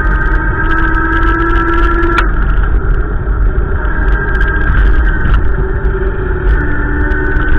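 Strong wind buffeting the microphone, a loud deep rumble, with a few steady tones that drift slowly in pitch above it.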